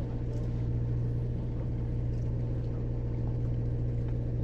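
A fishing boat's engine running with a steady, even low drone.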